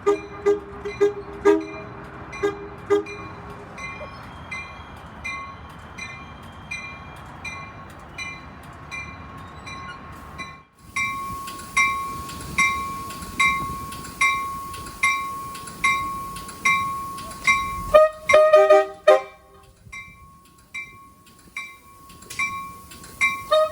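Railroad crossing bells dinging in a steady beat of a little over one strike a second as a train goes by, with the rumble of the train beneath. About 18 seconds in, the train horn gives a short blast.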